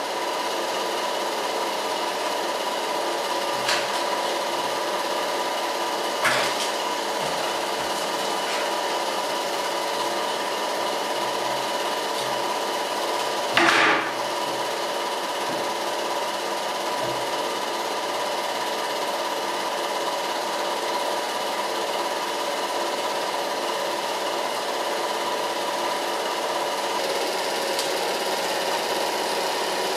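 Three Eumig super 8mm projectors running together, a steady mechanical whirr with an even hum. A few short knocks break it, the loudest about 14 seconds in.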